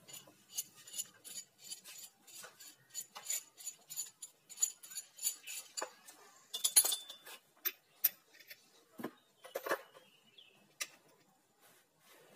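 Steel sockets and hand tools clinking against each other as a socket is picked out by hand: a quick run of sharp metallic clinks, with a louder clatter about seven seconds in, then a few scattered clinks.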